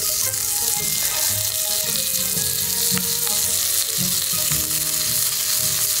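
Slices of pork belly sizzling steadily in hot fat, just laid on to cook, with a couple of light clicks.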